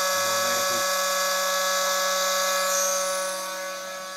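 Brushless outrunner motor spinning the tool post grinder spindle at a steady speed under a VESC controller: a steady electric whine made of several fixed pitches over a hiss. It gets noticeably quieter about three seconds in.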